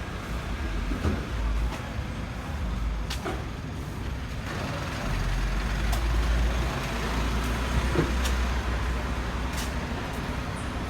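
Motor vehicle on the move, a steady low engine and road rumble that swells for a few seconds midway, with a few faint clicks.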